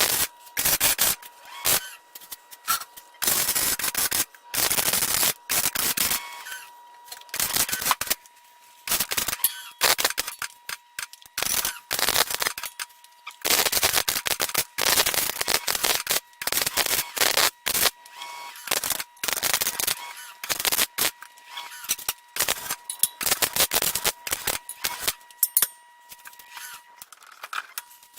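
Electric arc welding on steel: the arc crackles in stop-start bursts of a fraction of a second to a couple of seconds, like a string of tack and short stitch welds. A faint steady high tone runs underneath.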